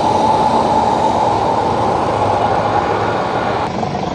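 Mercedes-Benz intercity coach's diesel engine running loudly as the bus pulls away, with a steady whine over the engine noise. The sound thins out abruptly near the end.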